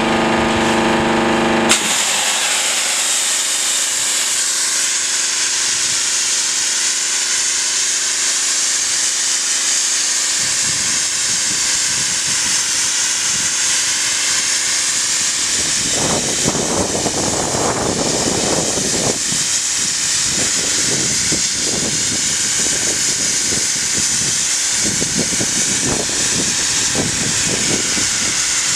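High-pressure washer set up for wet sandblasting (500 bar, 22 L/min): the machine's pump hums, and about two seconds in the jet opens into a loud, steady hiss. From about halfway an uneven spattering of the sand-and-water jet on the steel container wall joins in, strongest for a few seconds past the middle.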